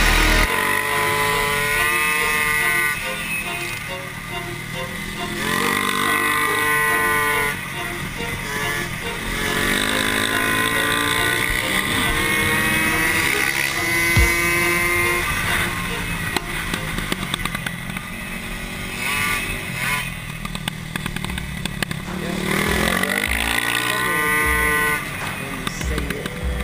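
Racing mofa's small two-stroke engine heard from on board, revving up and easing off again and again as it accelerates down the straights and backs off for the corners; music plays underneath.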